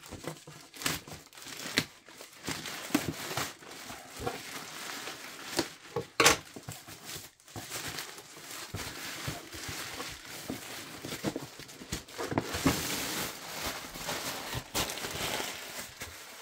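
Grey plastic courier mailer bag being torn open and pulled off a cardboard box by hand: irregular crinkling and rustling of the plastic with sharp tearing, the loudest rip about six seconds in.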